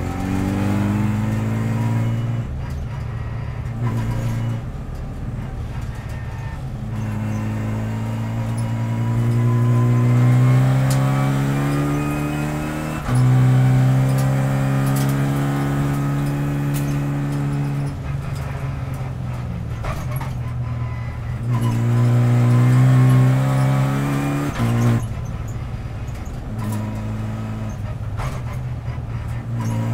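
Renault Clio Cup race car's four-cylinder engine heard from inside the cabin, revving hard through the gears. The pitch climbs steadily and then drops or jumps sharply several times as the driver shifts up and down for the corners.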